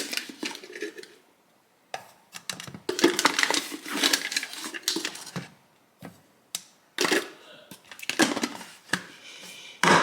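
Kitchen clatter: an irregular run of knocks, clinks and rattles as dishes, utensils and containers are handled, with a couple of short quiet pauses.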